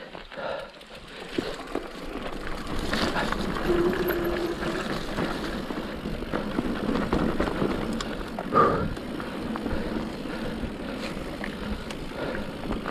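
Mountain bike riding over a muddy dirt trail: steady tyre and drivetrain rattle with scattered knocks, and a louder jolt about eight and a half seconds in.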